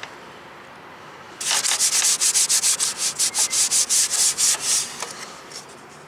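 Rapid back-and-forth rubbing or scrubbing, about six strokes a second, starting about a second and a half in and stopping near the five-second mark.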